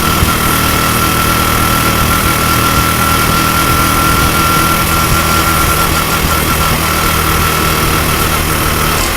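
Honda Super Cub 90 engine, bored up to 105 cc, idling steadily on test run after a manual cam chain tensioner was fitted in place of the automatic one to cure a cam chain clicking. The note shifts slightly near the end.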